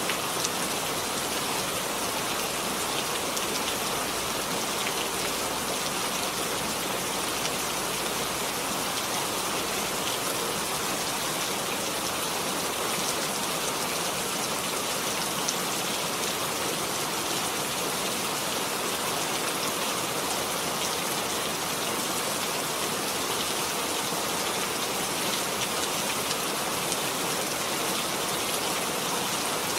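Steady rain falling, a continuous even hiss dense with tiny drop ticks.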